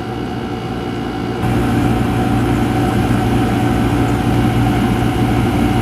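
Marinaire marine air-conditioning unit running with a steady low hum. About a second and a half in it grows louder, with a hiss added. The unit is being topped up with freon for a leak and has been diagnosed with low cooling-water flow.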